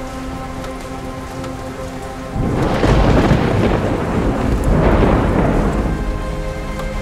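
Steady rain, with thunder breaking suddenly about two and a half seconds in and rumbling on in two swells for roughly three and a half seconds before easing back to the rain.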